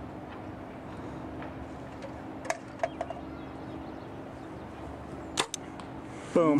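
A bow shot: a few light clicks, then about five seconds in the sharp snap of the string's release, followed a split second later by the arrow striking the target.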